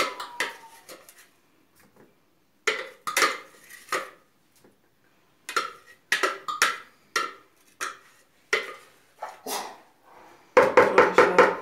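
Clinks and knocks of a glass bowl being tipped and tapped over a plastic basin to empty it, in short groups with pauses and a quick run of clinks near the end.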